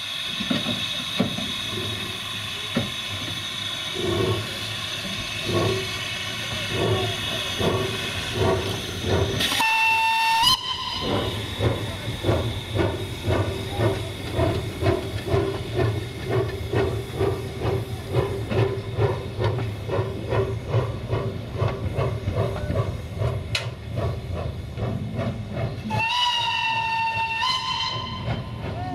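Narrow-gauge steam locomotive 764.408 'Cozia 1' hissing steam from beside its cylinders as it starts away, its exhaust chuffs slow at first and quickening. A short whistle blast comes about ten seconds in, then steady chuffing, and a longer whistle blast near the end.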